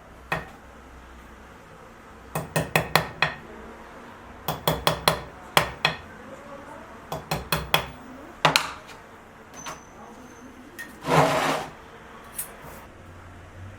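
Light, quick taps of a small hammer or tool on wood, in runs of four to six within about a second, with a few single knocks and one short scraping stroke about eleven seconds in.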